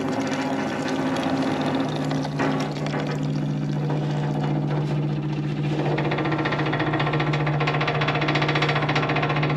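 Small Facet electric fuel pump running on about 18 volts with a steady buzz, pumping water out of a boat's fuel tank. The sound grows fuller about six seconds in.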